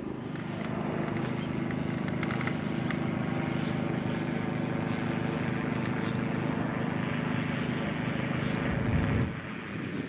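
Side-by-side utility vehicle's engine idling steadily, with a few light crackles early on; the engine sound falls away about nine seconds in.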